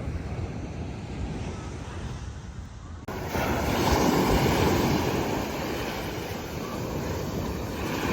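Wind buffeting the microphone, then after an abrupt cut about three seconds in, a louder steady wash of ocean surf with wind.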